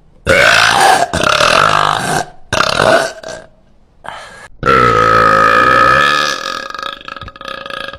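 A woman's very loud burps: a quick run of three short ones in the first few seconds, then one long burp of about a second and a half past the middle that trails away.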